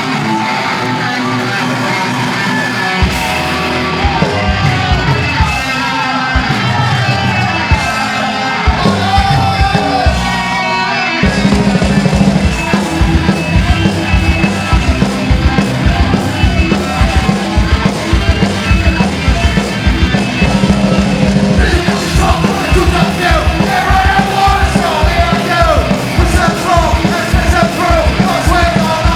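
Live punk rock band playing: electric guitar opens, the drums come in a few seconds later, and the full band drives at a fast tempo from about eleven seconds in. Shouted vocals join near the end.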